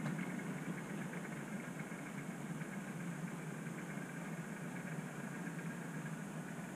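OO gauge model train running on the layout, a steady rumble of its motor and wheels on the track with faint fine ticking.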